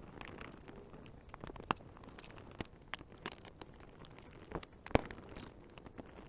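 Scattered light clicks and taps from small screws being backed out of a graphics card's fan shroud with a screwdriver and handled, with a couple of sharper clicks about 1.7 seconds and 5 seconds in.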